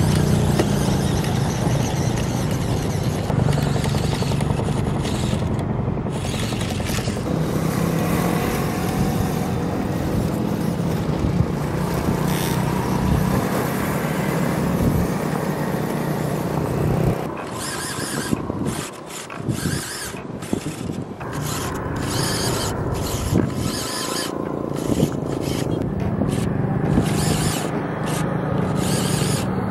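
Small electric drive motor of a 1/24-scale RC car whining as it drives, with its tyres scraping and crunching over dirt and gravel. A little over halfway through the sound starts cutting in and out repeatedly.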